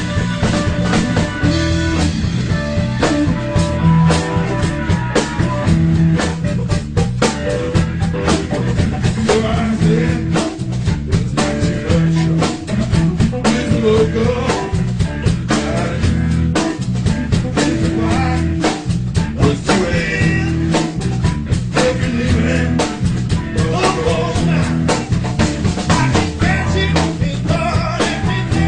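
Band music with a drum kit keeping a steady beat over bass and electric guitar.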